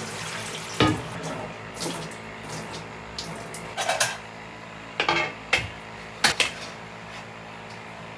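Stainless-steel mixing bowls and a mesh rice strainer clanking against each other and the steel sink as washed rice is drained, about seven sharp metallic knocks. A steady low hum runs underneath.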